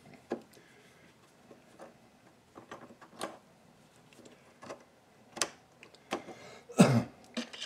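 Scattered light metal clicks and knocks from the base of a Frankford Arsenal M-Press coaxial reloading press as it is wiggled by hand to seat its pins and washers, with a louder clunk near the end.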